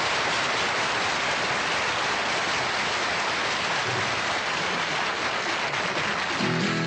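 Studio audience applauding steadily. Near the end, an acoustic guitar and double bass start playing.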